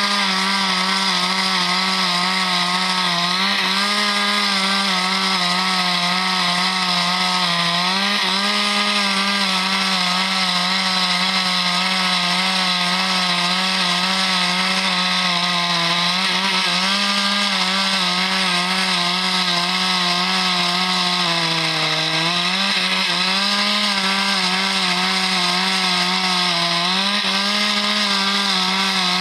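Husqvarna two-stroke chainsaw running at high revs throughout, its engine note dipping briefly several times as the chain bites and loads the engine while cutting through eucalyptus wood.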